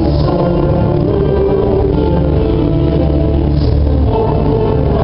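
Music with slow, held notes over a steady low bass.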